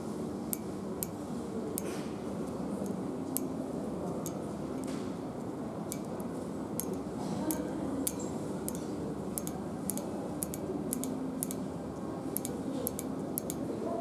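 Long pointed acrylic nails tapping on a metal handrail with a speckled coating: sharp, irregular clicks, coming more often in the second half, over steady shop background noise.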